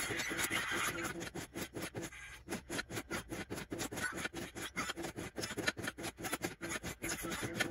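Re:Zero pachislot machine being played: a rapid, even run of sharp mechanical clicks, several a second, from its buttons, lever and reels.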